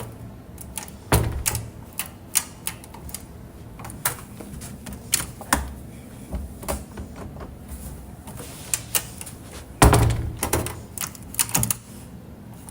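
Irregular clicks and knocks from things being handled, with two heavier thumps, one about a second in and one near the end, like a door or lid being shut.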